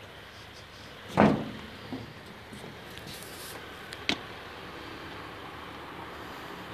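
Footfalls on wooden railway sleepers: one heavy thump about a second in and a sharp knock about four seconds in, over a steady background hiss.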